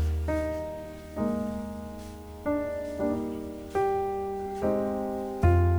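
Slow, gentle solo piano music: notes struck about once a second, each left to ring and fade, over deep bass notes.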